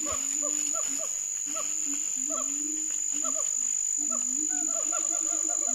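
Tropical forest ambience: a steady high-pitched insect drone, with a run of short, low repeated calls from an animal.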